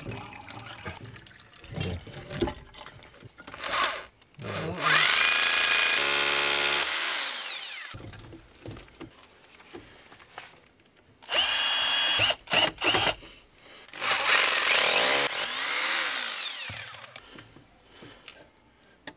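Electric drill run in bursts: one run about five seconds in, a few quick stop-start trigger pulls around twelve seconds, and another run about fourteen seconds in. Its whine falls away as the motor winds down each time.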